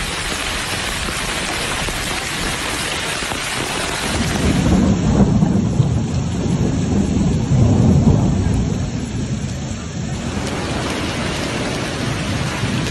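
Heavy rain falling steadily, with a long rumble of thunder rolling for several seconds in the middle.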